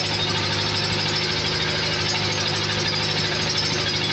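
A large engine running steadily at constant speed, a loud even hum with no change in pitch.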